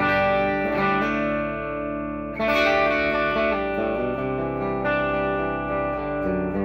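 Electric guitar chords strummed through an amp and left to ring, with a fresh strum about two and a half seconds in and further chord changes after. The guitar has 50s Les Paul-style wiring, with the volume knob rolled back to 9 and the tone knob turned up, which brings back some of the lost volume.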